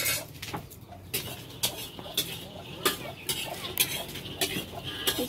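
A dozen or so sharp, irregular clicks and knocks.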